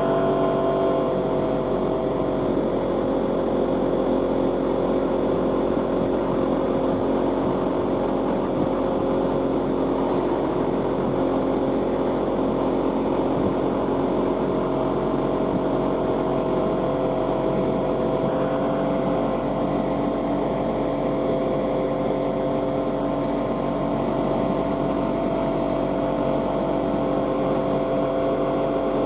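Outboard motor running steadily at speed while towing two kneeboarders, with a rush of water and wake spray. The engine note holds even throughout, shifting slightly about a second in.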